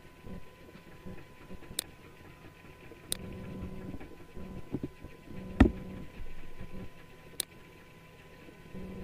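Computer mouse clicking four times in sharp single clicks; the one about halfway through is the loudest, with a low thump, over a faint steady hum.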